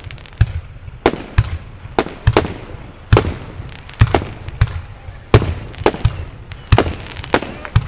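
Aerial fireworks shells bursting in quick succession: a steady string of sharp bangs, about two a second, each trailing off briefly.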